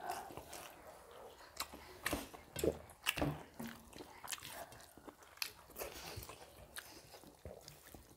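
Mouth sounds of two people eating rice and chicken spinach curry with their hands: wet chewing and lip-smacking, with irregular short clicks.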